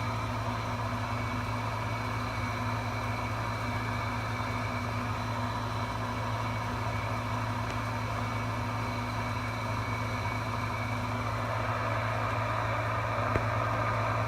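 Browning Mark III tube CB radio receiving an empty channel: a steady low hum under an even hiss of static, with one faint tick near the end.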